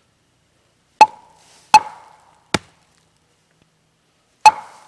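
A hatchet chopping into a log to carve a mallet: four sharp chops, the third lighter, each with a short ringing tail.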